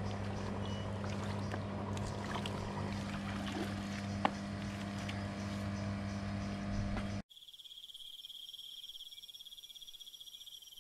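A steady low mechanical hum with water noise and a few light knocks. About seven seconds in it cuts off abruptly, leaving a quieter, high, fast-pulsing chirring of insects.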